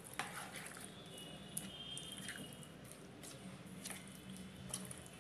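Metal spoon stirring thick semolina idli batter in a bowl: soft wet squishing with a few sharp clicks of the spoon against the bowl, scattered through the stirring.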